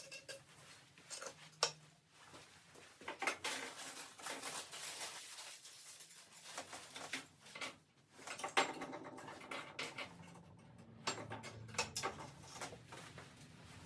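Irregular clicks, light knocks and rustling of parts being handled and fitted together, with a sharper knock about a second and a half in and another near the middle.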